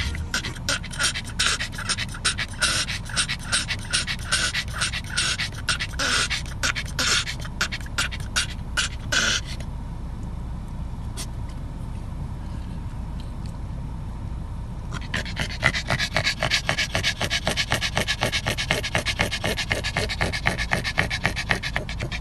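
A small black dog panting rapidly and rhythmically, with a pause of about five seconds midway, after which the panting comes back faster. A low steady rumble runs underneath.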